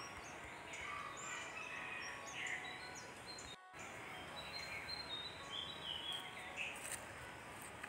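Many birds chirping and calling, short varied chirps overlapping one another, fairly faint. There is a brief dropout in the sound a little over three and a half seconds in.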